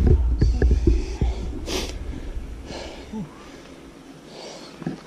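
Heavy breathing of a mountain biker catching his breath after a climb: three or four loud, hissy exhales about a second apart. A low rumble and a few light clicks run through the first half.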